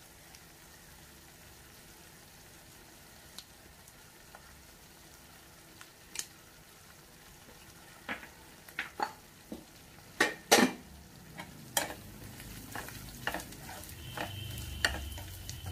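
Spice masala with chilli powder frying in oil in a pan, a faint steady sizzle. From about eight seconds in, a spoon stirs it and clicks against the pan several times, and the sizzle grows louder near the end.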